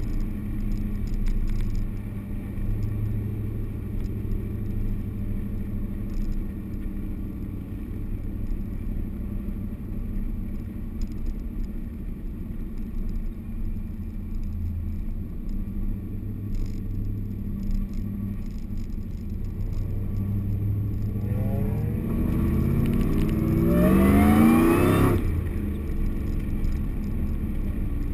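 Whipple-supercharged V8 of a modified Ford SVT Lightning pickup, heard from inside the cab, running at low speed with a steady low hum. About three-quarters of the way through it revs up for a few seconds, rising in pitch and getting louder, then cuts off suddenly as the throttle closes.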